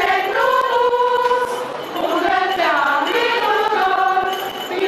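A mixed choir of men and women singing together, holding long notes.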